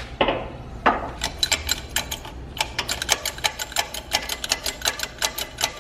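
Shop press forcing a Nissan 350Z rear hub out of its wheel bearing: a steady low hum with rapid, irregular clicking that starts about a second in.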